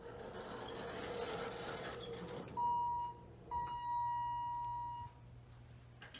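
A Thyssen Dover hydraulic elevator's single-speed door sliding open, then the hall lantern's electronic chime sounding two tones, a short one and a longer fading one, as the car answers a call going down.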